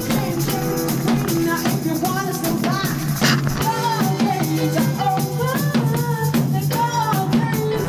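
Background music with a steady drum beat and a melody over a sustained bass line.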